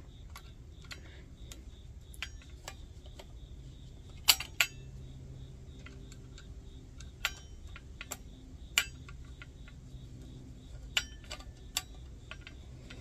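Scattered sharp metallic clicks and taps of a screwdriver working a homemade screw in a Coleman 508 stove's aluminium burner bowl; the screw will not start cleanly. The loudest click comes about four seconds in.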